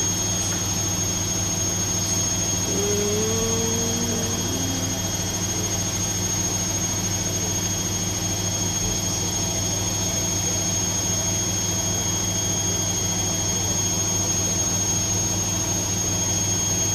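Bosch washing machine spinning its drum at about 800 rpm, a steady motor whine and hum over the load. The load is badly unbalanced and the machine is shaking.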